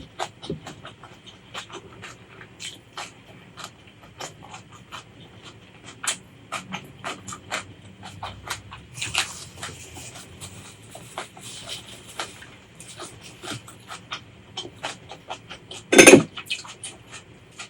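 Close-miked eating sounds: wet chewing with many quick crisp clicks and crunches, and one much louder crack about sixteen seconds in.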